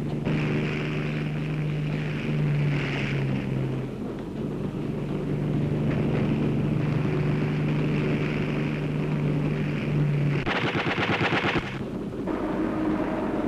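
Aircraft engines droning overhead, with a rapid burst of machine-gun fire lasting about a second near the end: an air attack on a train.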